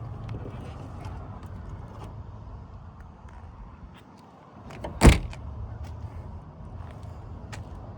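A car door shuts with a single solid thump about five seconds in, over a steady low rumble.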